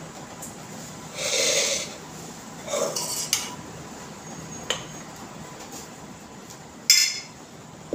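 A metal spoon scraping rice out of a pressure cooker and knocking against a steel plate while serving: two scrapes, a small tick, then a sharp clink near the end.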